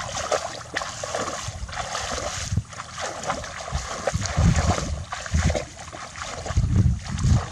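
Shallow water sloshing and splashing as someone wades and gropes by hand in it, with heavier, deeper sloshes about halfway through and again near the end.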